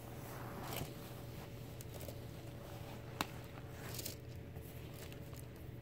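Soft rustling of a fabric dust bag as a quilted lambskin handbag is slid out of it, with one sharp tick about three seconds in, over a faint steady hum.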